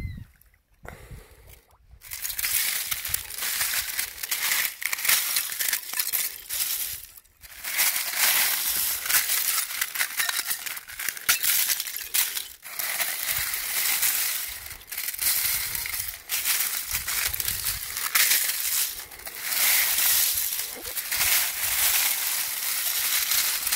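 A pile of long, needle-shaped ice crystals tinkling and crunching, like shards of glass, as a hand scoops and stirs through them. A dense run of tiny clinks that breaks off briefly a few times.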